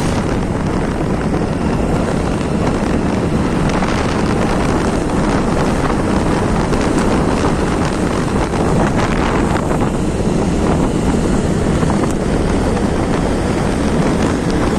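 Wind rushing steadily over the microphone on a moving motor scooter, with the scooter's engine running underneath.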